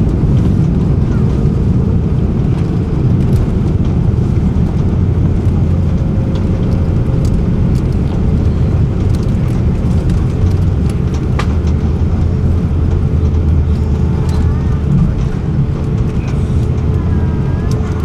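Steady roar of an airliner's engines and airflow heard from inside the passenger cabin, with a faint steady hum and a few light clicks.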